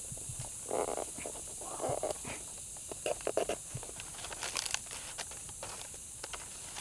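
Leaf bundle rustling and crinkling as a cord is wound and pulled tight around it, with a few short scrapes about one, two and three seconds in, over a steady high insect drone of the rainforest.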